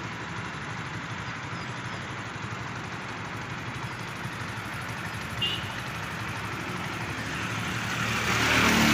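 Motorcycle engine running steadily at road speed under wind and road noise. The noise swells near the end. A brief high chirp comes about halfway through.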